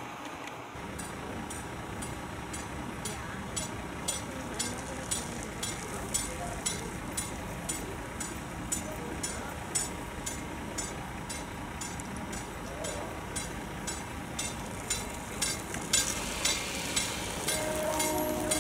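South Shore Line electric commuter train approaching slowly, its rumble and hiss rising about a second in and growing louder near the end, with sharp ticks repeating about twice a second.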